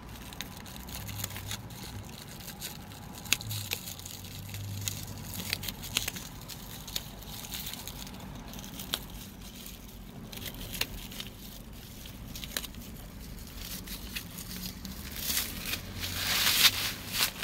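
Plastic wrapping on a container being snipped with scissors and peeled off, crinkling and crackling with scattered small clicks; the crinkling gets louder near the end as the wrap is pulled away.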